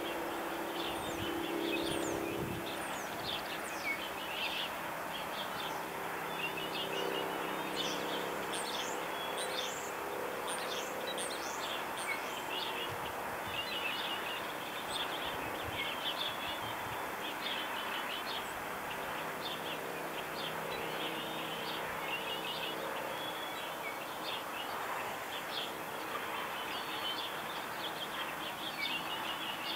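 Several small birds chirping and twittering in a dawn chorus, many short quick calls overlapping throughout, over steady background noise and a faint low hum that is strongest in the first few seconds.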